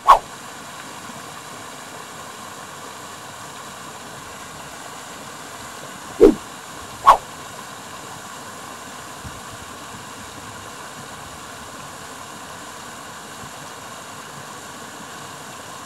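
Pond surface aerator running steadily: a constant hiss of churning, spraying water over a steady motor hum. Three short, loud gliding whooshes cut in, one at the very start and two close together about six to seven seconds in.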